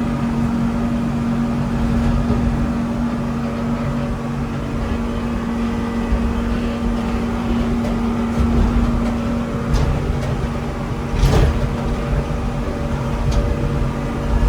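John Deere 750C LGP crawler dozer's diesel engine running steadily at an even pitch as the machine crawls along. A few sharp knocks sound over it, the loudest about eleven seconds in.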